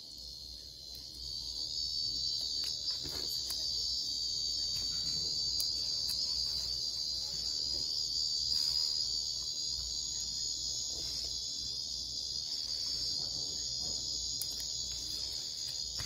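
Calling song of an Auritibicen japonicus cicada (Korean 깽깽매미): one long, unbroken high-pitched buzz that swells in over the first couple of seconds and then holds steady.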